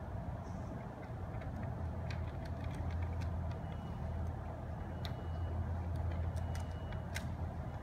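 Light scattered clicks and crackles as a thin printed aluminum graphic is pressed and smoothed by hand onto a pillar, over a steady low room hum.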